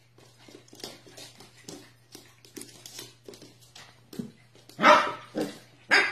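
A corgi puppy gives two short, loud barks about five and six seconds in. Light taps and clicks of its paws and the tennis ball on the hardwood floor run throughout.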